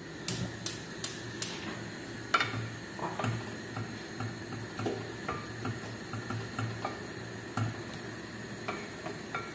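Gas hob's electric igniter clicking four times in quick succession as a burner is lit. After it, a wooden spatula stirs and scrapes bulgur in a nonstick pot, with light, irregular knocks against the pot.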